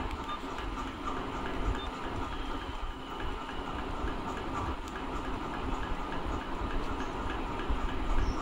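Steady rumbling background noise with a faint regular ticking running through it.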